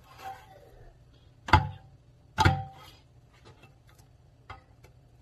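Metal can of fruit cocktail being handled and opened on a stone countertop: two sharp metallic knocks, each with a brief ring, about a second and a half and two and a half seconds in, then a few light clicks.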